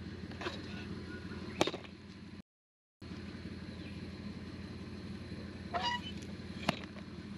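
A four-wheel drive's engine running steadily while driving a rough dirt track, with two sharp knocks and two short squeaks over it. The sound cuts out for about half a second early on.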